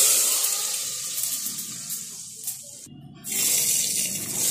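Hot oil tempering (tadka) sizzling loudly as it is poured from a small pan into sambar in a pressure cooker. The hiss fades, stops briefly about three seconds in, then surges again as the rest of the pan is tipped in.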